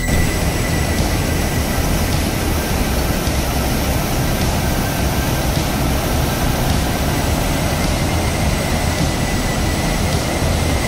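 Steady, even rush of a fast, silt-laden mountain river in spate, churning over rapids.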